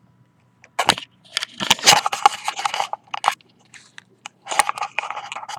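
Irregular bursts of crunchy crackling static from an RF meter's audio output. The crackle comes in two spells with a short gap between them.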